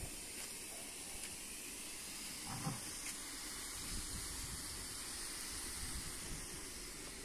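Faint steady hiss of background noise, with a few soft low thumps scattered through it and no clear bark or growl.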